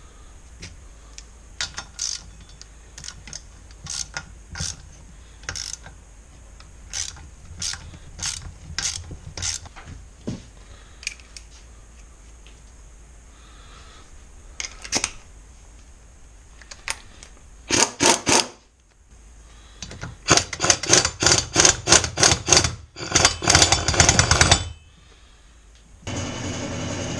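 Hand tools working on a small engine: scattered sharp metal clicks and clinks, then bursts of fast ratchet clicking in the second half as fasteners are run in. A steadier noisy sound starts about a second before the end.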